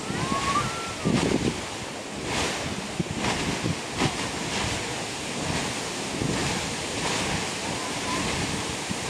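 Grand Geyser erupting: the steady rush of its water column and the splash of water falling back into the pool.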